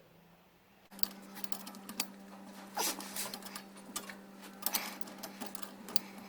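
Irregular light clicks and small knocks of hand work on the car, over a steady hum that starts about a second in.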